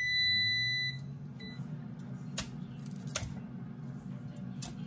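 Instant Vortex Plus air fryer beeping once, a long tone of about a second as it switches on, over a steady low hum that starts at the same moment. Later come a few sharp knocks of a cleaver chopping cauliflower on a wooden cutting board.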